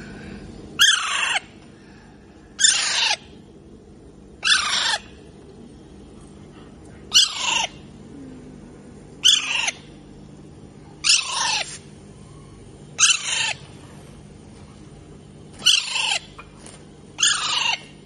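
Young Alexandrine parakeet calling again and again: nine loud, harsh screeches about two seconds apart, each sliding down in pitch and lasting about half a second.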